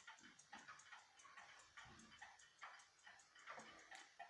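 Faint, steady ticking of a 1912 Waterbury tall case clock's pendulum movement, a little over two ticks a second.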